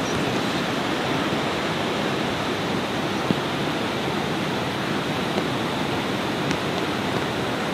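A flooded river raging over a low dam: a steady rush of white water.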